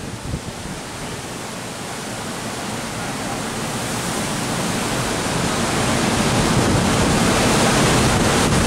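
Storm wind and rough, churning sea off a cruise ship's stern making a steady rushing hiss that grows gradually louder.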